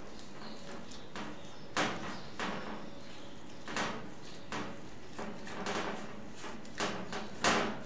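Bread dough being kneaded by hand in a glass bowl: short, irregular pushes and slaps of the dough against the glass, about one a second, the loudest near the end.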